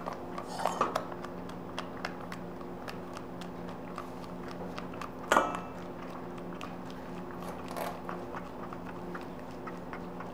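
A warm cream mixture being worked through a metal sieve with a spatula: light scraping and many small ticks of utensil on sieve and bowl, with one sharper clank about five seconds in. A steady low hum runs underneath.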